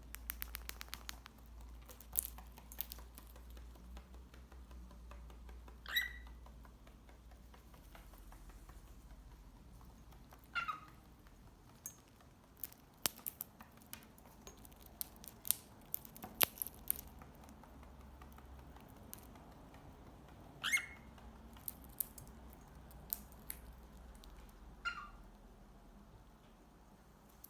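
Cockatiels pecking and cracking seed, many small sharp clicks scattered irregularly, with four short chirps spread through it.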